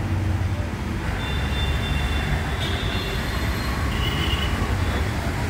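Steady background street noise: a low rumble of passing traffic.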